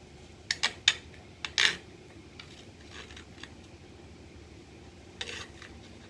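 Small metal bolt clicking and scraping against a hard plastic dishwasher latch part as it is worked through a freshly drilled hole: a quick run of sharp clicks and a short scrape in the first two seconds, a few faint ticks after, and another brief scrape near the end.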